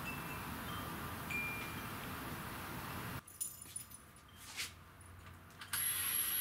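Engine coolant pouring from a jug into the scooter's coolant filler neck, a steady liquid rush that cuts off abruptly about three seconds in. It is followed by light metallic clicks and tinkles and a short louder rustle near the end.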